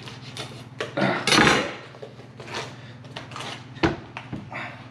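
A dull kitchen knife scraping and tapping at the hard armored shell of a whole smoked armored catfish on a cutting board, with scattered clicks and knocks of the blade. There is a louder scrape about a second in and a sharp knock near the end as the knife comes down on the board.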